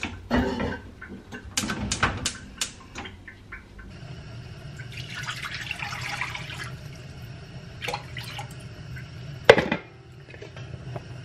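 Pans clattering on a gas stove, then water pouring from a plastic measuring jug into a wok, and one loud knock near the end.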